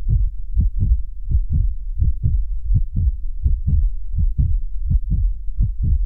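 A steady pulse of deep, low bass thumps, about four a second, with nothing over them: an electronic outro beat.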